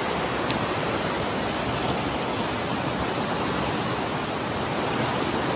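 Steady rush of whitewater as the outflow of a large spring pours and churns over rocks.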